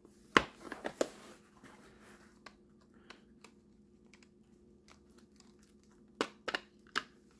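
Cardboard packaging handled with a quick run of sharp clicks and rustles about half a second to a second in. Near the end come three or four sharp plastic clicks as a clear plastic clamshell tray is worked open.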